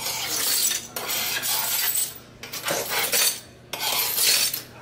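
A metal spoon scraping and rattling around a kitchen sink basin and drain, digging out broken glass, in about four rasping passes with short pauses between them.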